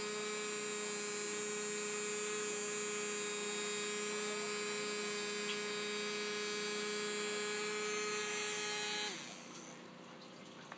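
Battery-powered bubble-blower toy's small electric motor running with a steady hum, then switching off and winding down about nine seconds in.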